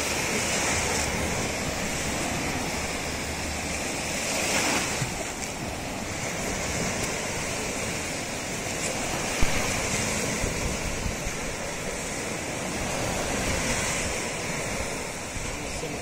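Small sea waves breaking and washing up a sandy beach, a steady rush of surf that swells and fades every few seconds. A single short sharp knock about nine seconds in.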